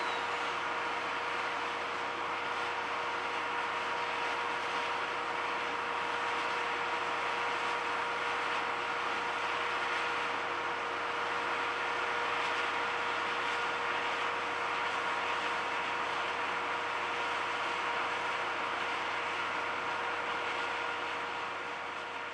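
Standing steam locomotive C57 180 blowing off steam: a loud, steady hiss with a few steady tones running through it, fading near the end.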